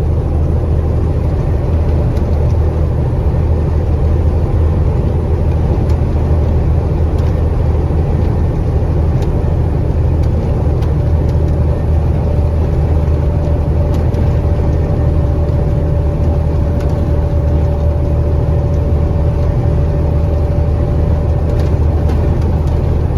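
Steady drone of a KamAZ 4308 truck's diesel engine and drivetrain heard from inside the cab while driving, with a faint steady whine over it.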